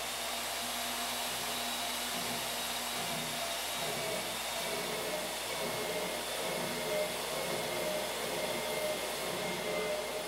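Climax portable boring machine running steadily, its boring bar turning a tool bit through a bore that has just been built up by welding: an even motor whine over the hiss of the cut, machining the weld back to size.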